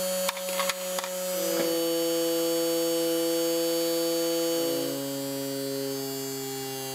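Small brushed DC motor of a Makita FD02 cordless drill running unloaded with a steady whine, after a few clicks in the first second. Its pitch drops in two steps, about one and a half and about four and a half seconds in, as the draining battery's voltage sags toward 5 V.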